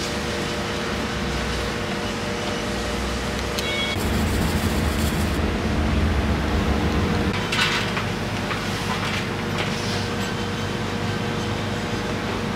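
Steady machine hum and air noise of a commercial kitchen, with a louder low rumble for about three seconds in the middle and a few light clicks.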